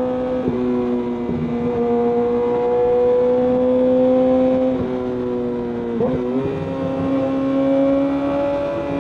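Inline-four sport bike engine heard from the rider's seat, cruising at steady high revs with a constant tone that drifts slowly in pitch. It dips briefly a few times, most clearly about six seconds in, then settles at slightly higher revs.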